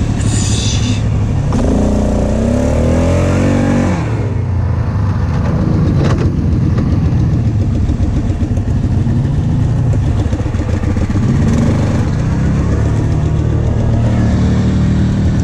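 Off-road engines: a Kawasaki Teryx side-by-side's engine rising and falling in pitch as it drives past over the first few seconds. After that, the steady running of a four-wheeler ATV's engine heard from on board as it drives along a dirt trail, until the sound cuts off at the end.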